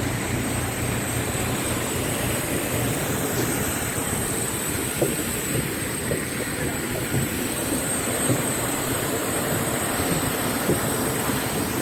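Steady rush of cabin air and ground noise inside a Boeing 737-800 parked before departure, with a thin steady high whine and a few light knocks.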